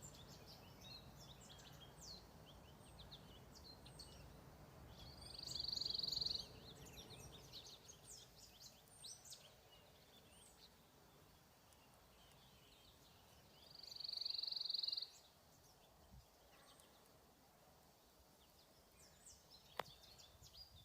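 Songbirds calling in woodland: scattered high chirps, and twice a bird sings a rapid, high trill lasting about a second.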